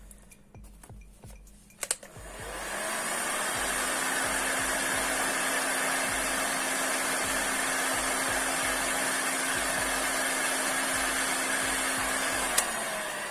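Heat gun clicked on about two seconds in, blowing steadily with a motor hum while it shrinks adhesive-lined heat-shrink tubing over a wire connector, then clicked off near the end and winding down.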